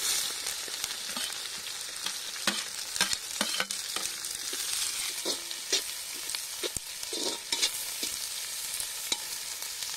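Chopped onions hitting hot oil in an iron kadai and frying with a steady sizzling hiss, along with curry leaves and green chillies. A metal slotted ladle scrapes and knocks against the pan as they are stirred.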